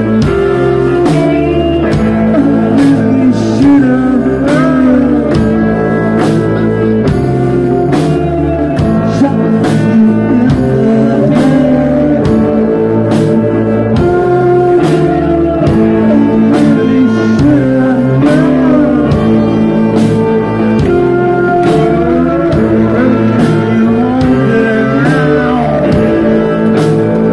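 Live rock band playing at full volume, with electric guitars, a horn section and drums keeping a steady beat.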